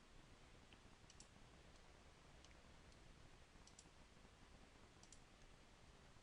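Near silence with a few faint computer mouse clicks, several coming in quick pairs.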